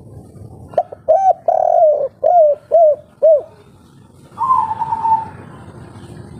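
Spotted dove (tekukur) of the 'kuk 3' song type cooing: a quick phrase of about six short, rounded coos about a second in, followed about a second later by one longer, rougher note.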